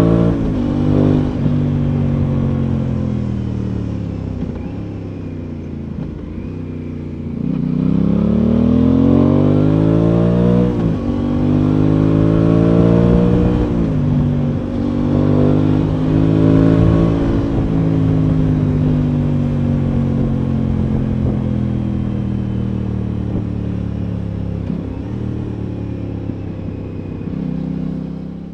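Aprilia Tuono 660's parallel-twin engine under way, accelerating through the gears: the revs climb, dip briefly and climb again several times in the first half. Over the last ten seconds it holds a steady, slowly falling note.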